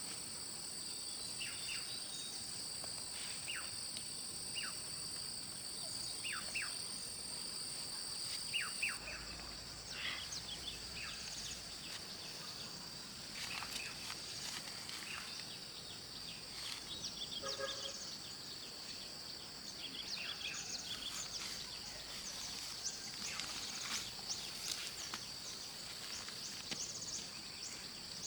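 Rural outdoor ambience: a steady high-pitched insect drone, with a bird's short falling chirps repeated in the first third, then scattered light clicks and rustles after about nine seconds.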